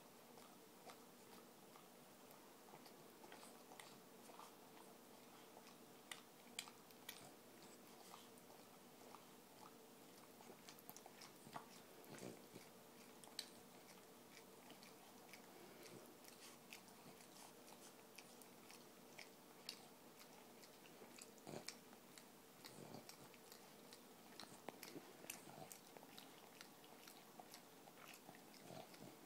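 Boston terrier licking another dog's mouth and face close up: faint, irregular clicking and smacking of the tongue, with no steady rhythm.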